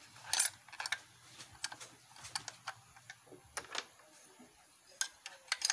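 Irregular light metallic clicks and taps from handling an electric planer while fitting a blade to its cutter drum.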